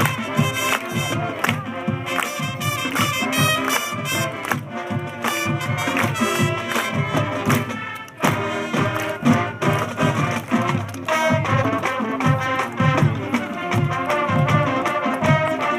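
Marching band playing, brass and drums, with regular percussion strokes and a short break about eight seconds in before the full band comes back in.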